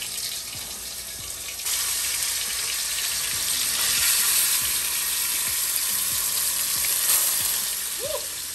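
Seasoned pork pieces sizzling in hot vegetable oil in an aluminium pot as they are dropped in to brown; the sizzle jumps louder about a second and a half in as more pieces go into the oil.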